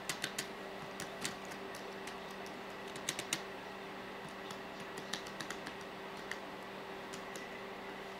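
Laptop keyboard keys tapped by a small child: irregular clicks, with quick little runs of several near the start and about three seconds in, then single taps spread further apart. A steady low hum sits underneath.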